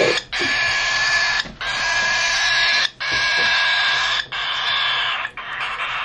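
Baby cockatiel chick giving its loud, raspy food-begging calls while being hand-fed: long hissing buzzes about a second each, about five in a row with short breaks between.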